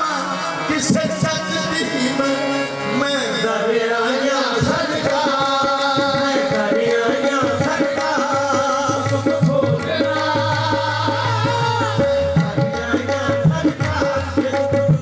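Live qawwali: tabla drumming under held harmonium notes, with male voices singing over them.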